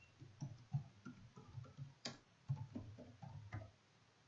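Faint, irregular clicking of keys on a computer keyboard as a line of text is typed, with one sharper keystroke about two seconds in.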